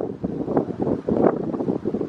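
Wind buffeting the microphone: loud, gusty rumble and flutter with no siren tone standing out above it.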